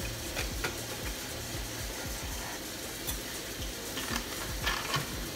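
Light kitchen handling: a few soft clicks and taps of bottles and containers being picked up and opened, over a steady hiss and a low hum that stops about halfway.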